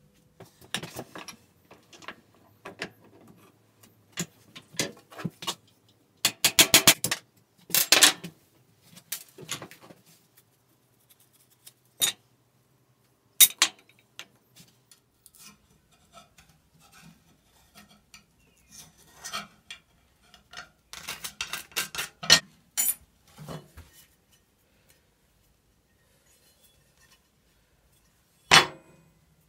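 Sharp metallic knocks and clinks in bursts: a punch being struck to drive the old pins out of a rusty meat cleaver's wooden handle, and the loose steel blade and pins clattering on a metal workbench.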